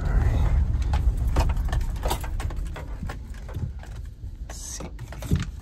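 Cabin sound of a Chevy Tahoe setting off on a test drive: a low engine and road rumble that eases off after about two and a half seconds, with scattered interior clicks and rattles.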